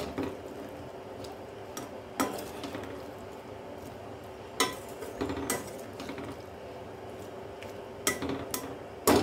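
Perforated steel ladle stirring potato cubes in a simmering tomato masala in a kadai, with scattered clinks and scrapes of the ladle against the pan, about half a dozen in all and more of them near the end.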